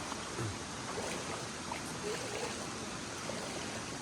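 Flowing river water, a steady rushing and trickling.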